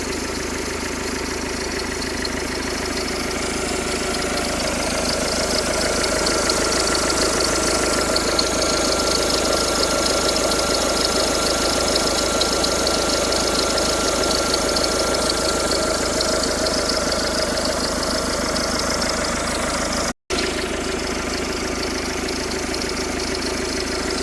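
Car engine running steadily, the owner's 'strange noise' video. It grows louder a few seconds in, with a thin steady whine for several seconds, then settles back down. The sound cuts out for a moment near the end.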